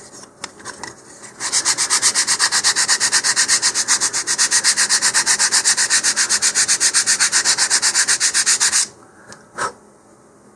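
100-grit sandpaper on a wooden sanding block, rubbed in fast, even back-and-forth strokes along the edge of a basswood fin to round its leading edge. The strokes start about a second and a half in, after a brief pause, and stop near the end, followed by a single light tap.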